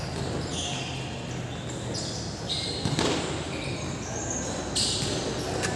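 Ambience of an amateur football match: faint distant voices over a steady background, with one sharp thud about three seconds in.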